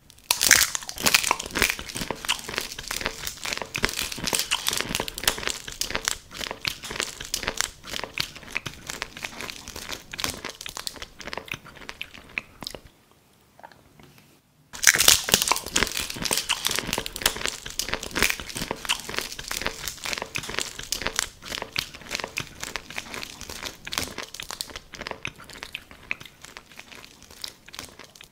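Close-miked ASMR crunching and chewing of something brittle, played as the biting and eating of a paintbrush. It comes in two long runs of dense crackling, with a short pause about halfway and a sharp crunch as the second run begins.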